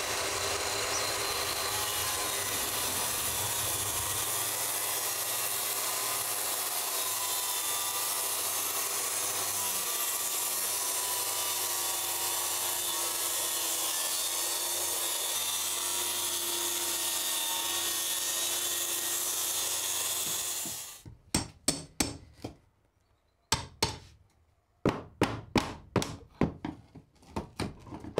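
Circular saw running and cutting through a plywood subfloor in one steady run of about twenty seconds, then it stops. A series of sharp, irregular knocks follows near the end.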